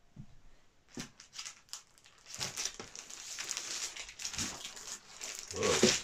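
Large paper print sheets rustling and crinkling as they are lifted and slid over a stack of prints. The handling starts about a second in, gets busier partway through, and its loudest rustle comes near the end.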